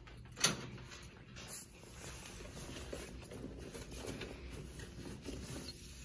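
A sharp click about half a second in, then the rustling and swishing of a cotton fitted sheet being pulled and stretched over a hospital bed mattress.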